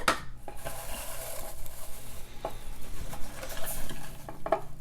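Hands rummaging in an opened subscription box, rustling its packaging, with a few light knocks and clicks as items are handled.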